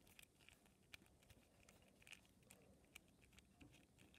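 Near silence, with faint scattered clicks and rubbing from fingers twisting a small vinyl Funko Pocket Pop figure to unscrew it from its keychain screw.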